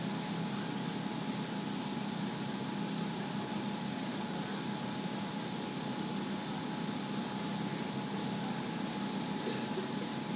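Steady mechanical hum and hiss: a constant low drone with a thin steady whine above it, unchanging throughout, with no distinct hoofbeats.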